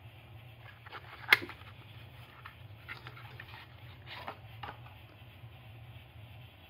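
Small paperboard box being opened by hand: a sharp click about a second in, then light rustling and scraping of card as a glass ink bottle slides out.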